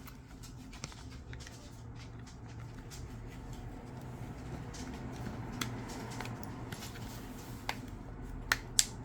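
Small clicks and taps from handling a smartphone's parts during a screen repair, scattered, with two sharper clicks near the end, over a steady low hum.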